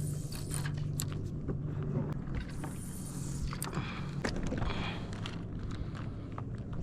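Water lapping and small splashes against a kayak, with scattered light knocks, over a steady low hum.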